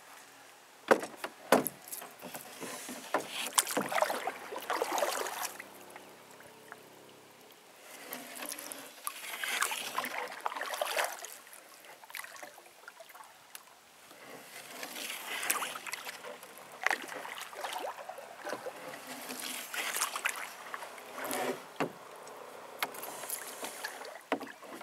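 Paddle strokes through water from a small boat: four swishing swells a few seconds apart, with scattered sharp knocks.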